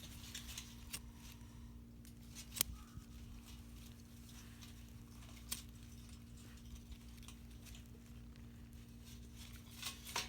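Scattered small clicks and snaps with light rustling, from handling paper and wood while lighting a small campfire. The sharpest snap comes about two and a half seconds in.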